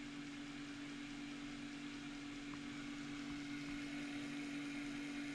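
Floppy disk drive on a BBC Micro spinning the disk, a steady motor hum with hiss, while it tries and fails to read a disk formatted under the Opus filing system.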